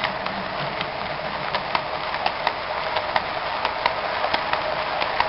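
Model train cabooses rolling along the track: a steady running rumble of wheels on rail, with sharp clicks about three times a second as the wheels pass over track joints.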